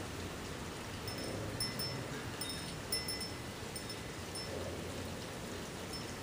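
Steady outdoor background noise, like wind or rustling, with a scattering of short, high tinkling tones starting about a second in.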